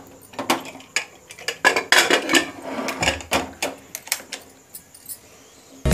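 Metal pressure cooker lid being fitted and closed over the pot: a run of irregular metallic clinks and knocks that thin out near the end.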